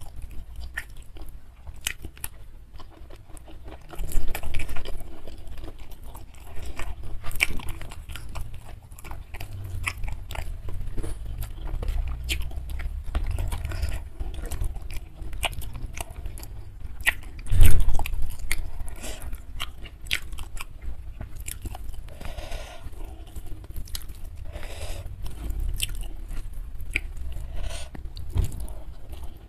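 Close-miked chewing of hand-fed mouthfuls of nasi padang rice and grilled fish, with crunching, crackly clicks and wet mouth sounds. There are a few louder bumps, the loudest a little past halfway.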